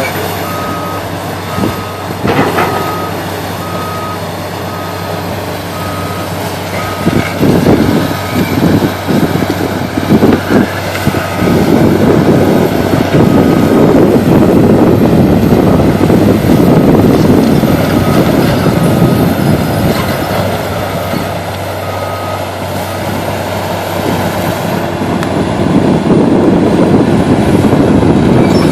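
Excavator running, its reversing alarm beeping about once a second until roughly three-quarters of the way through. Loud crunching and clattering builds in the middle and again near the end as the machine works.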